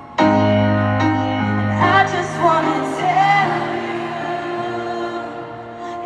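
Live concert music: a piano comes in with a loud chord just after the start and rings on while a woman sings a slow ballad over it, heard through the big reverberant sound of an arena.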